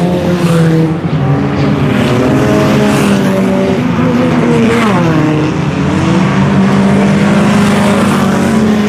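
Several IMCA Sport Compact race cars running hard on the final lap, the engines loud and steady. Their pitch drops briefly about five seconds in, then holds steady again.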